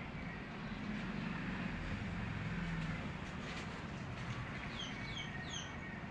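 Steady background noise with a low rumble. Near the end a small bird gives three quick, high, falling chirps.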